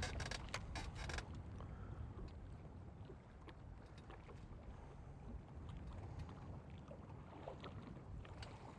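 Steady low rumble of wind and small waves around a small fishing boat, with a few sharp clicks in the first second and faint ticks later.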